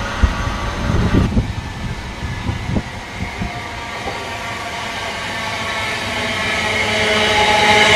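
Class 387 Electrostar electric multiple unit approaching. Its rumble grows steadily louder over the last few seconds, with a few steady tones coming in near the end. Irregular low thumps fill the first few seconds.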